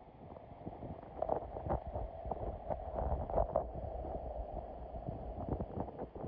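Water heard through a phone microphone held underwater: a muffled sloshing with a low rumble and many scattered clicks and knocks.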